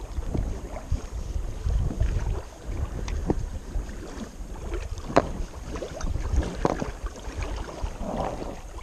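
Wind rumbling on the microphone, with scattered light clicks and ticks from a spinning reel being cranked to bring in a hooked fish.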